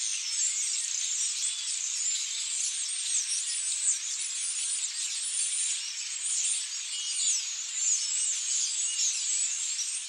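Many small birds chirping and twittering at once, a dense high-pitched chorus of quick overlapping chirps.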